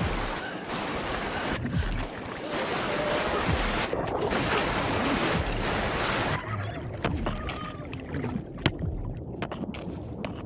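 Whitewater rushing and splashing around a raft running rapids. About six seconds in, the steady rush drops off, leaving separate sharp splashes and knocks.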